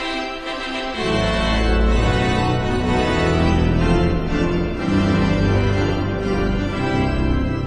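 Organ playing sustained chords, with deep bass notes coming in about a second in.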